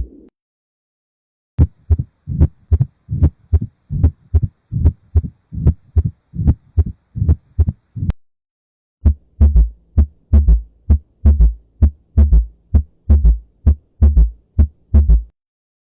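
Heart sounds as heard through a stethoscope: after about a second and a half of silence, a mitral stenosis heartbeat with a low-pitched rumbling diastolic murmur. After a short break, a heartbeat with an S3 ventricular gallop, a third sound just after S2 that is associated with rapid ventricular filling, often fluid overload, with a low steady hum underneath.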